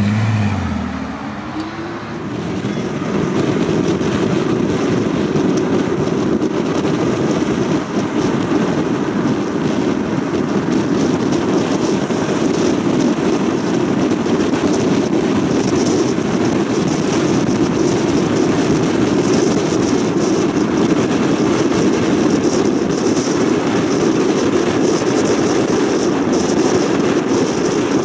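A Bentley Continental convertible's engine passes close by in the first second, its pitch falling as it goes. Then comes steady tyre and wind noise of a car cruising at speed on a motorway.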